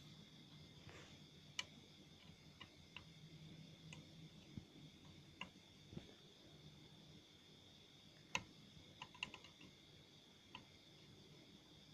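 Near silence broken by about a dozen faint, irregular light clicks and taps, loudest about eight seconds in, over a faint steady high whine.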